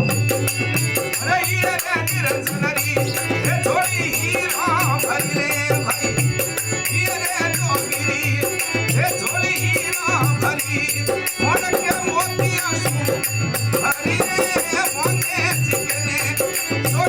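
Rajasthani folk bhajan music without clear singing: a repeating low drum beat with rattling, shaker-like percussion and a melody line over it.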